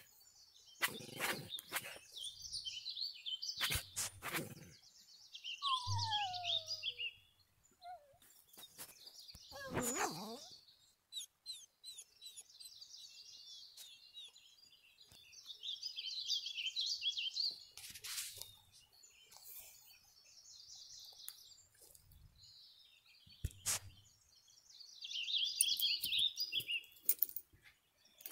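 Small birds chirping and twittering in repeated bursts of quick high notes, with a couple of short falling whines, about six and ten seconds in, and scattered sharp knocks.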